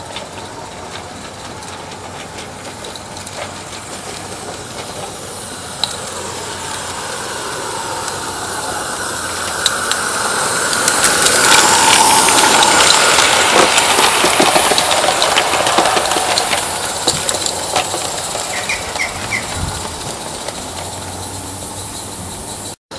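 Small live steam garden-railway locomotive running past, with steam hissing and its wheels and running gear clicking on the track. It grows louder as it comes close about halfway through, then fades as it moves away.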